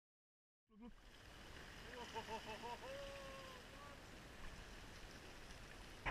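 Faint sea-shore ambience, a soft even hiss of water and light wind, that comes in about a second in after silence. Around the middle come a few short, quick pitched calls in a rapid series, then one longer held note.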